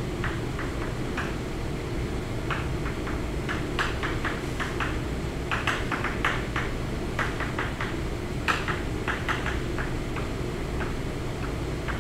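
Chalk on a blackboard as a chemical structure is written: a string of short, irregular taps and scratches, with a steady low room hum underneath.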